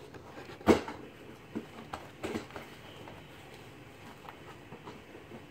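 A single sharp knock just under a second in, then a few faint taps, with the room otherwise quiet.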